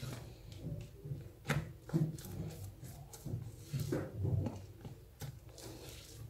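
A spoon mixing thick chocolate mousse in a glass bowl: soft irregular scraping and stirring, with a few sharp taps of the spoon against the glass.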